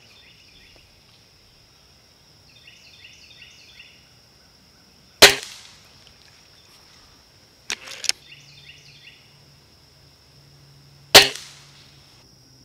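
Two shots from a .177 break-barrel spring-piston air rifle, a rebuilt Stoeger X10, about six seconds apart, each a sharp crack with a short ring-off. Between them come two lighter clicks in quick succession.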